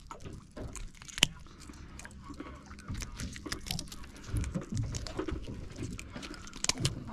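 Fishing pliers clicking and scraping against a Spanish mackerel's toothy jaw and the hook as the hook is worked free, with irregular small clicks and knocks and one sharp click about a second in.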